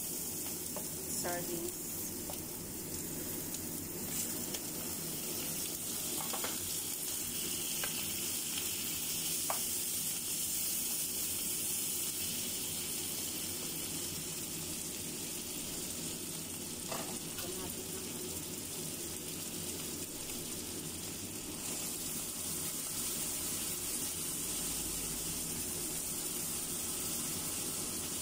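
Mushrooms, onion and fried dace with salted black beans sizzling steadily in hot oil in a wok, stirred with a spatula that scrapes and taps against the pan now and then.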